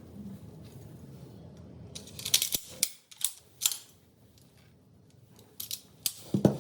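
Sharp metallic clicks and clacks from a Glock 19 pistol being handled: a quick run of them about two seconds in, and another near the end.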